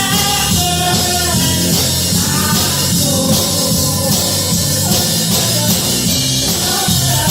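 Band music with drums and a steady bass line, and a voice singing over it.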